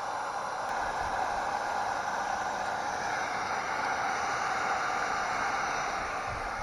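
Heat gun running, a steady airy hiss of hot air as it melts polyethylene plastic to weld a reinforcement patch onto a kayak hull.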